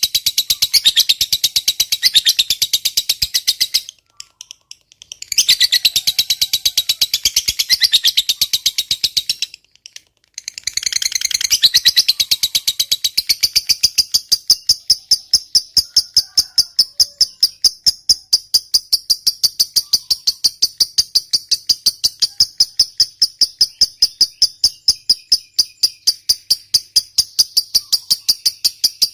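Lovebird's long 'ngekek' song: a loud, rapid, high-pitched chattering trill, broken by two short pauses about 4 and 10 seconds in. After the second pause it settles into a steadier, even rapid pulsing.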